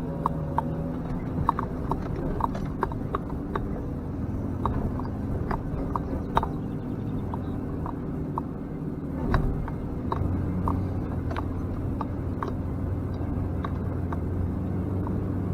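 Off-road vehicle engine running steadily at low speed over rough ground, with irregular sharp clicks and knocks over it. The engine note strengthens about ten seconds in.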